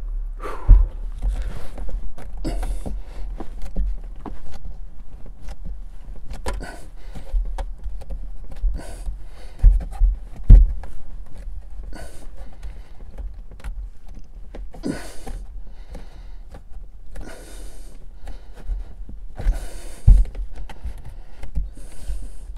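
Irregular knocks and bumps, with patches of scraping and rustling, as a vinyl-covered speaker bar is pushed and worked by hand into a snug fit in a car's storage compartment. The loudest knocks come about ten seconds in and again near twenty seconds.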